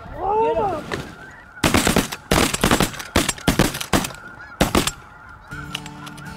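Snow geese calling as they come in, then a rapid, overlapping volley of about ten shotgun shots from several hunters over roughly three seconds. Faint goose calls carry on afterwards.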